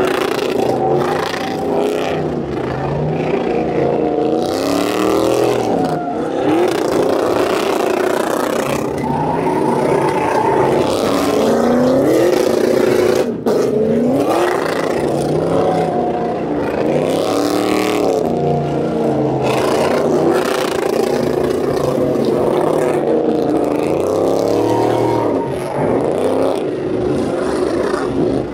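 Several pickup truck engines revving hard at once during burnouts, pitch rising and falling over and over, with tyres spinning on the pavement. There is a brief dip about halfway through.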